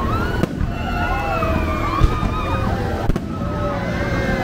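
Crowd of people chattering and calling out, with three sharp fireworks bangs, about half a second, two seconds and three seconds in.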